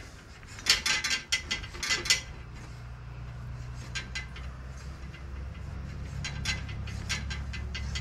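Hand tap in a tap wrench cutting the half-inch left-hand fine pedal threads of an old steel bicycle crank arm. It gives a run of sharp metallic clicks and creaks about a second in, then a few lighter clicks as the tap is worked back out, over a low steady hum. The tap is clearing rust and cutting chips from rough threads.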